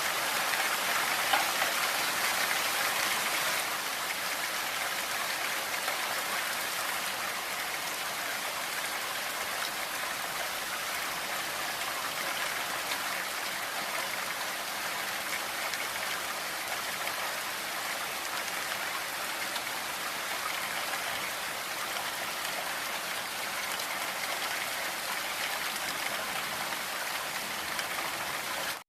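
Steady, dense hiss of a blizzard: wind-driven snow that sounds much like heavy rain, with no distinct gusts. It cuts out briefly at the very end.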